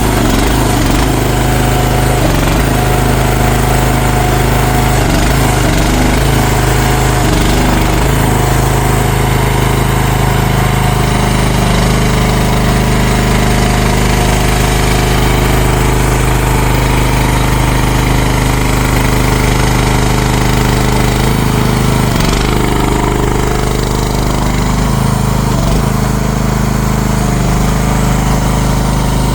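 CFG MX15RX mini excavator's small engine running steadily at working speed, its pitch shifting slightly a few times as the machine is worked.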